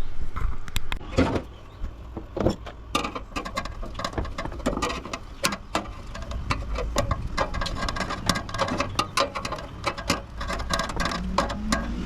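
Irregular clattering and clicking of metal and plastic parts being handled and pried apart while a coffee maker is dismantled for scrap. A low steady hum comes in near the end.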